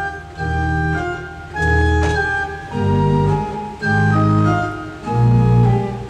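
Music: a slow series of sustained keyboard chords, about one a second, the bass note changing from chord to chord.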